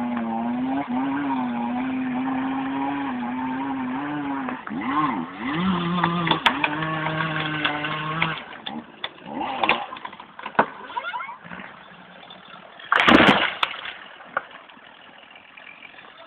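County tractor's diesel engine running steadily, then revving up and down as it works the winch, before dropping back; near the end a brief loud crash with a few sharp cracks.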